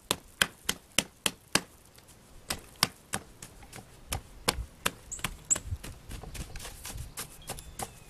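Gloved hands patting and slapping a mound of damp sand into shape: sharp pats about three a second in the first second and a half, fewer after that. In the second half the pats give way to softer rubbing as the sand is smoothed and pressed down.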